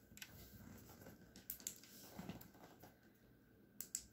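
Near silence: faint room tone with a few soft, brief clicks.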